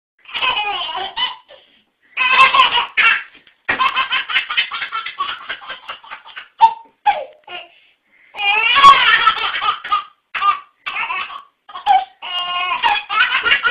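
A baby laughing in repeated bursts of quick, pulsing laughs, with short pauses between the fits.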